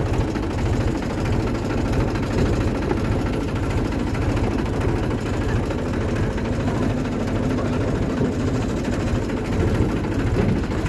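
Tractor engine running steadily at a constant speed, with a low, even throb, as used for potato harvesting.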